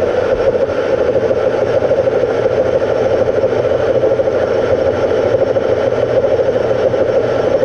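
Engine lathe running steadily with its spindle turning the workpiece while the carriage feeds the cutting tool along the profile.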